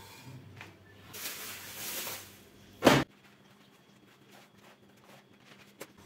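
A capped bottle of fizzy mineral water being opened, gas hissing out for about a second, followed by one sharp clack, loud and sudden, near the middle.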